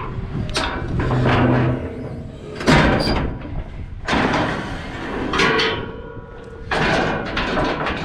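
Getting out of a John Deere combine cab: the cab door opens and boots step down the combine's steel steps and ladder. It comes as a series of separate knocks, clanks and scuffs, about seven of them spread over the seconds.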